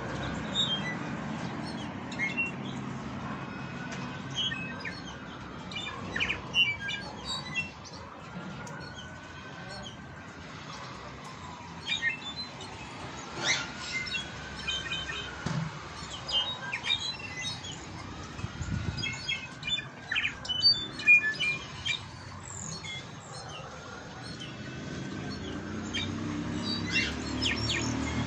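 Caged brown-backed solitaires (jilgueros) calling, with many short sharp chirps and a whistled note rising and falling at about 1.3 kHz, repeated every few seconds. A low rumble runs underneath.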